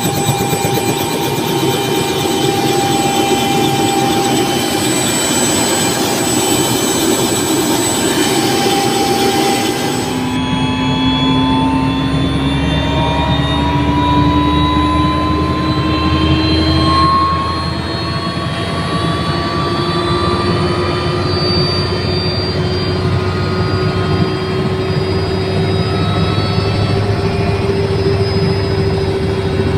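Light helicopter's engine and rotor running on the ground, loud and steady with a high whine. About ten seconds in the sound turns heavier and lower, as heard inside the cabin, and its pitch then rises slowly as the rotor speeds up.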